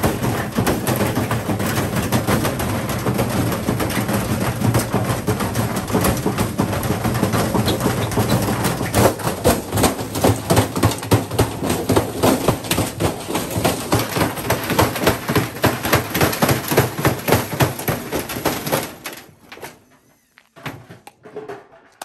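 Beko front-loading washing machine spinning with heavy bricks in its drum: loud, continuous banging and clattering that becomes a rapid, regular pounding about halfway through as the machine shakes and walks across the concrete. The pounding stops abruptly near the end, leaving only a few faint knocks.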